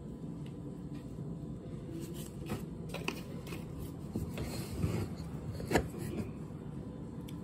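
Kitchen handling sounds as paprika and seasoning are shaken over raw ground beef in a ceramic bowl: a few light clicks and taps from spice jars, a brief shaking rustle around the middle and a sharp click near the end, over a low steady hum.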